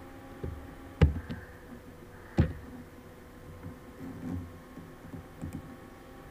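Two sharp clicks about a second and a half apart, with a few fainter knocks, from the presenter operating the computer as the slide changes, over a faint steady hum in a small room.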